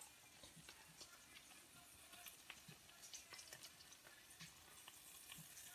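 Near silence, with a few faint small clicks as thick chickpea-flour batter is poured and spooned out of a bowl onto chicken pieces.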